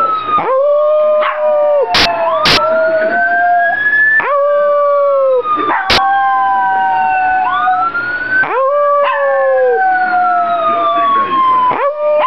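A Pomeranian howling along to a wailing police siren. There are three drawn-out howls, about four seconds apart, over the siren's slow rising and falling wail, with a few sharp clicks around two and six seconds in.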